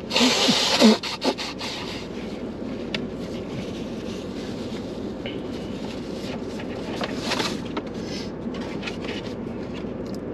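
A man blowing his nose hard into a tissue, a loud blast in the first second and a shorter blow about seven seconds in, over a steady low background hum inside the car.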